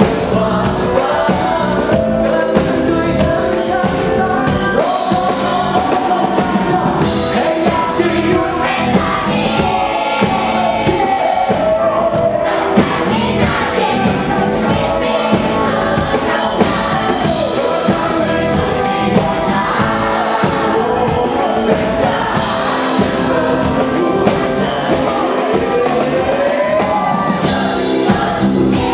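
Live band music with a lead singer, over a steady beat.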